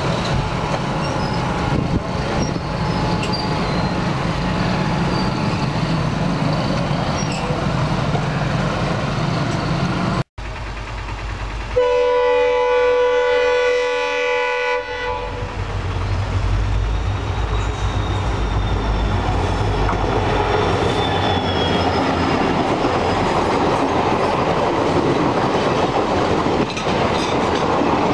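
A diesel locomotive's horn sounds one steady multi-tone blast lasting about three seconds, a little before halfway. It is followed by the steady rumble and clickety-clack of a passenger train's coaches running past on the track.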